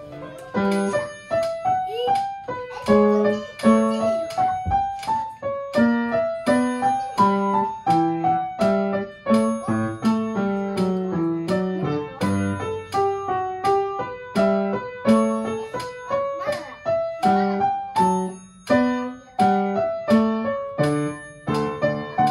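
Piano being played at an even pace: a melody of single notes over lower accompanying notes, each note struck and dying away.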